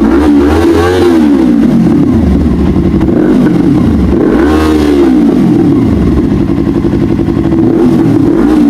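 Yamaha R3's parallel-twin engine breathing through a newly fitted aftermarket exhaust, revving up and dropping back several times.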